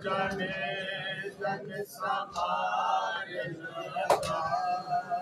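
Men chanting a noha, the Shia lament of Muharram, cut by sharp slaps of hands on bare chests in matam at uneven intervals, with a louder double slap about four seconds in.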